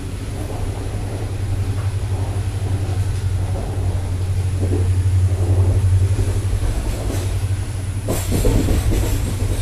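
Running noise inside a moving Indian Railways express coach: a steady low rumble from the wheels and running gear, with the coach rattling. A burst of sharp clattering comes near the end.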